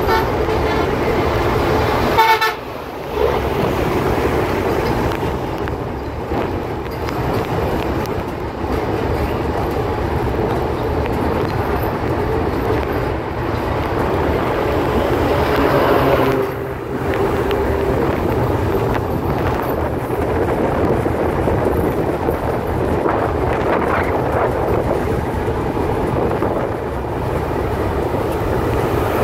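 Train running with a steady rumble; a horn sounds for the first two seconds or so. The sound drops out briefly twice, about two and a half seconds in and near the middle.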